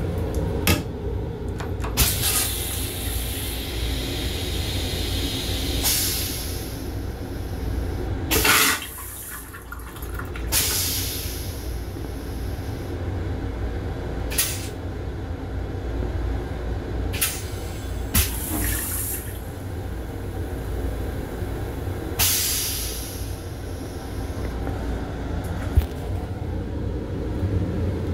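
Long Island Rail Road M7 car's stainless-steel toilet flushing with a short loud whoosh about eight and a half seconds in, over the steady low rumble of the moving train. Several sharp clicks and knocks are scattered through the rest.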